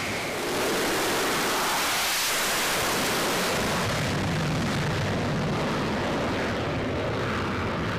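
F-35C's Pratt & Whitney F135 turbofan at full power for a carrier catapult launch: a loud, steady rush of jet noise that steps up about half a second in. The high end thins from about four seconds in as the jet leaves the deck.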